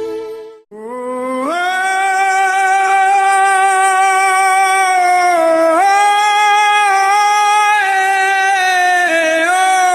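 Music: a lone sung melody of long held notes that step up and down in pitch, with no drums or bass. The audio cuts out briefly under a second in.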